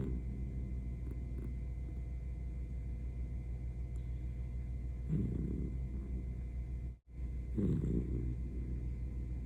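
Senior miniature dachshund snoring in its sleep: a steady low rumble with two louder, pitched snores, one about halfway through and another a couple of seconds later. The sound cuts out for an instant just before the second snore.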